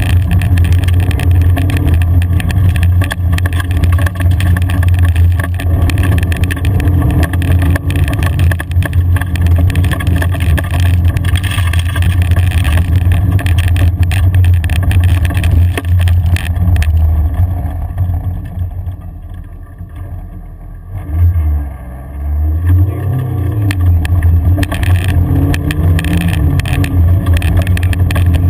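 In-car sound of a car driving on a rough gravel track: the engine runs steadily under load, with rumble and knocks from the track surface. About two-thirds of the way through it eases off and goes quieter, then the engine note dips and climbs again as it picks up speed.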